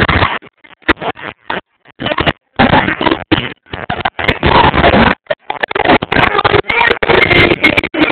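A loud, distorted human voice in choppy stop-start bursts, growing more continuous towards the end, recorded with poor sound quality.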